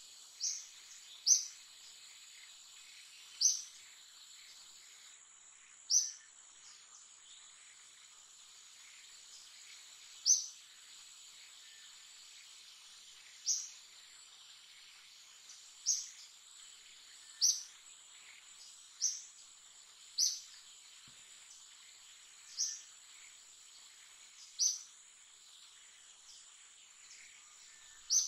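A steady, high insect drone, with a short, sharp, high chirp repeating every one to four seconds, about a dozen times in all.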